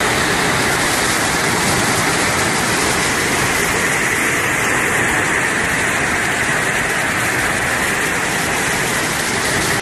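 Floodwater rushing in a fast torrent: a loud, steady rush of water that doesn't let up.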